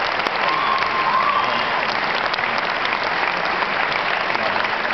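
A large audience applauding steadily, with dense clapping from many hands.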